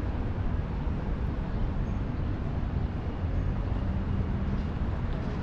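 Steady city street ambience: a low, even rumble of distant traffic.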